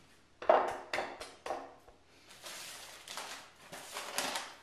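A few sharp knocks, then a paper bag rustling and crinkling as it is handled and tipped to pour a dry ingredient into a mixing bowl, swelling twice before it fades.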